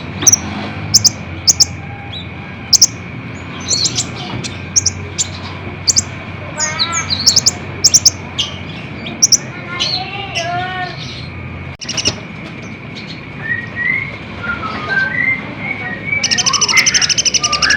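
Kolibri ninja sunbird song: sharp high chirps a few times a second, with some lower slurred notes in between. There is a brief break about twelve seconds in, and a loud, fast trill near the end.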